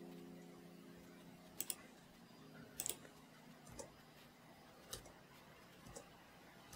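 Faint clicks of a computer mouse button and keyboard spacebar, about five of them spaced a second or so apart, against near silence with a faint hum that fades out partway through.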